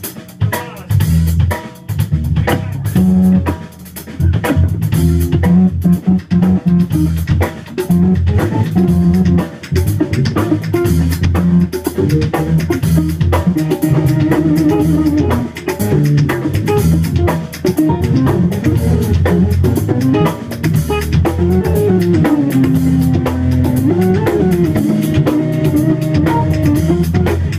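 Live electric rock band playing an instrumental jam: a drum kit and a steady low bass under an electric guitar lead. In the second half the guitar holds long notes, bending one down and back up near the end.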